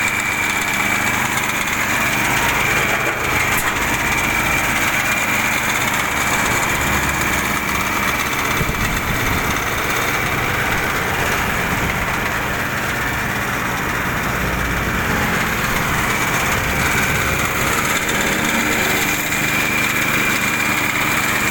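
A small engine running steadily as it drives a 150 kg mixer machine on a test run, with a steady high-pitched whine over the engine noise.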